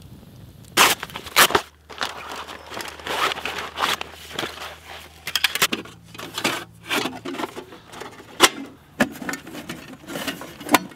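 Thin aluminium sheet panels of a homemade folding reflector oven being handled and fitted together: irregular sharp metallic clacks, rattles and scrapes, the loudest about a second in and again past the middle.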